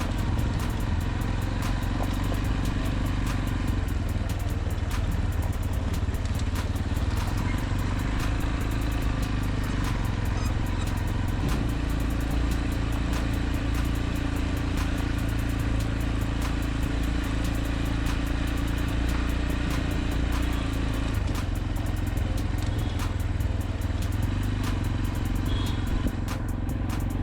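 A motor vehicle's engine running steadily with road noise, its pitch shifting slightly a couple of times, with light clicks and rattles over it.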